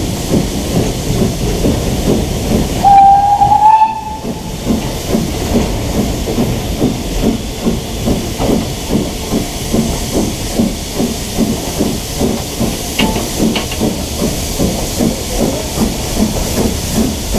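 BR Standard Class 9F 2-10-0 steam locomotive working along the line, a steady rhythm of exhaust beats over a continuous hiss of steam. About three seconds in, the locomotive's whistle sounds one loud blast of about a second, rising slightly in pitch.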